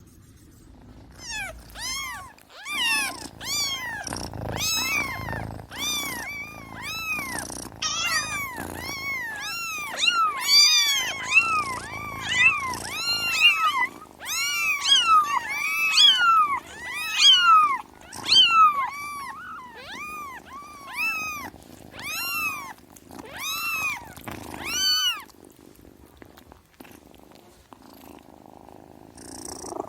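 Kittens mewing over and over, short high-pitched rising-and-falling calls at about one or two a second, sometimes overlapping, dying away near the end.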